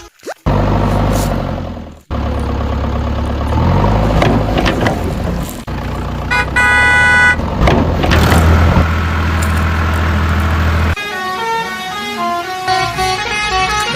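A heavy vehicle's engine running steadily, with one horn blast of about a second, some six seconds in. About eleven seconds in the engine gives way to a bright melodic tune.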